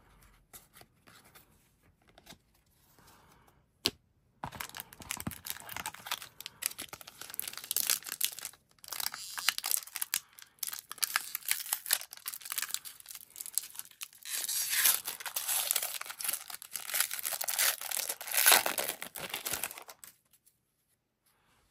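The wrapper of a 2023 AEW Upper Deck trading card pack being torn open and crinkled by hand. After a single click about four seconds in, the crackling runs on and off, is loudest in the last few seconds, and stops shortly before the end.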